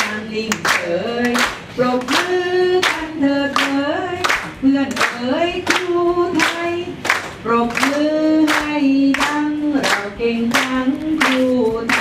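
A group of mostly women's voices singing a song together in unison, clapping along in a steady beat of about two claps a second.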